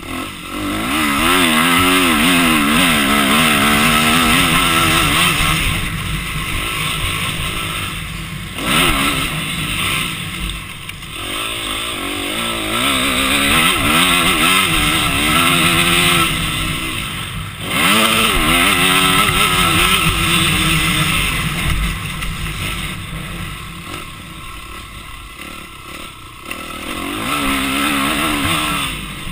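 Off-road racing engine heard onboard, revving hard and easing off again and again as the rider accelerates, shifts and slows through the track's jumps and turns. The pitch sweeps up and down continually, with two sharp throttle cuts about eight and seventeen seconds in.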